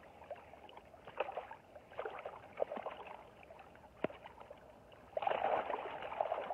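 River water splashing and sloshing around a keepnet as it is lifted and shaken, with short irregular splashes, then a louder stretch of water pouring and churning from the net about five seconds in.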